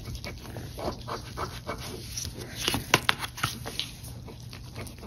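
Rapid, irregular scraping strokes of a folded iridescent card rubbing the latex coating off a paper scratch-off lottery ticket, with a few louder strokes about three seconds in. The coating is very sticky and hard to scratch off.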